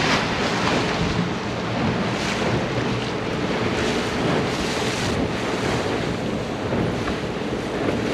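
Wind buffeting the microphone over choppy lake water splashing, in irregular gusts, with a faint steady hum underneath.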